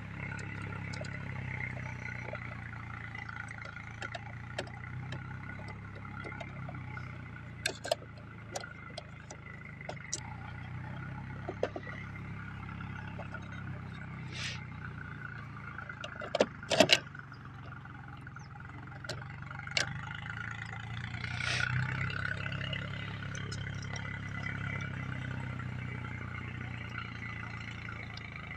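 Scattered sharp clicks and taps as the contactor in a motor starter box is handled, the loudest a quick cluster of clicks about two-thirds of the way through, over a steady low hum.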